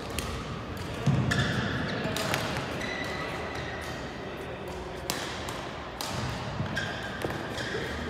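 Badminton play in a large hall: several sharp racket strikes on the shuttlecock, about one every second or so, with court shoes squeaking briefly on the mat and distant voices.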